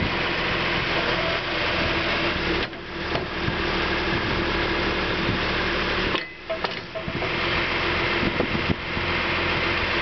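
John Deere 710D backhoe's diesel engine idling steadily.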